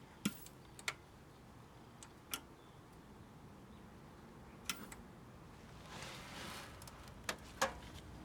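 Faint scattered clicks and taps, about seven in all, with a soft hiss that swells and fades about six seconds in.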